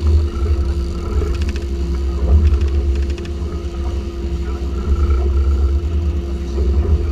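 Twin Yamaha 350 hp four-stroke V8 outboard engines running under way, a steady drone over a heavy low rumble.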